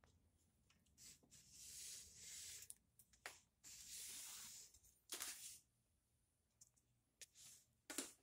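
Mostly near silence, broken by several faint scratchy rustles of about a second each and a few light clicks near the end.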